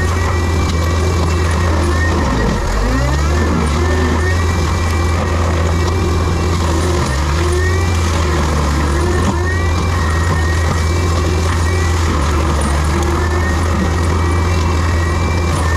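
Heavy diesel machinery running steadily, its engine note dipping briefly twice as if under load, with short high squeals repeating over it.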